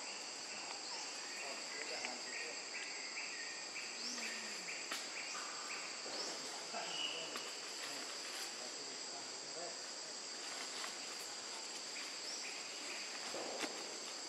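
Chorus of forest insects droning in steady high tones, with a short rising chirp repeating every second or two and a pulsing call that stops about five seconds in.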